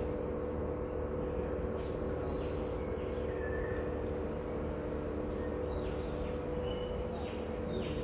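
Tropical forest ambience: a steady high insect drone over a low hum, with a handful of short falling chirps scattered through.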